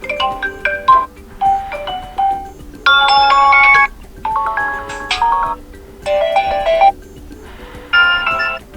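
ZTE Blade V50 built-in ringtone playing: a bright electronic melody of short notes and chords in phrases, with brief gaps between them.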